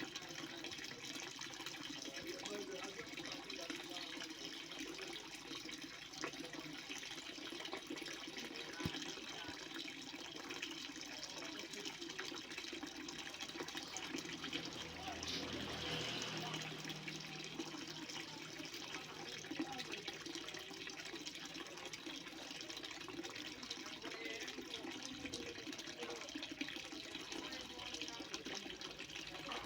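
Heavily flowing water making a steady rushing sound, with a slight swell about halfway through.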